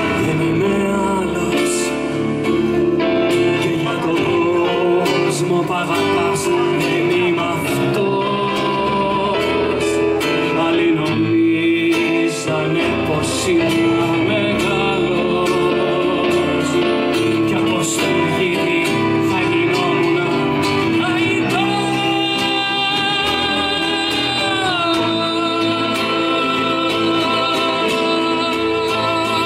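Live music: a man singing to acoustic guitar. Late on there is a long held note that slides down in pitch.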